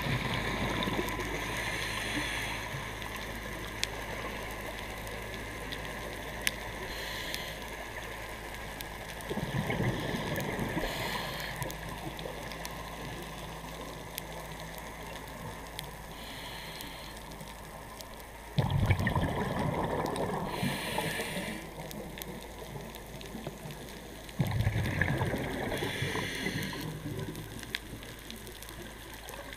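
Scuba regulator breathing underwater: short hisses of inhaling through the demand valve, and three loud bubbling rushes of exhaled air, about nine, nineteen and twenty-five seconds in.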